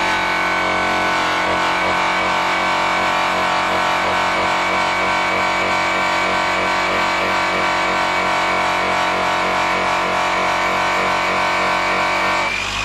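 Background music with a steady beat, laid over the steady running of a DeWalt rotary polisher buffing a chrome wheel with an airway wheel and white chrome rouge. The music changes abruptly near the end.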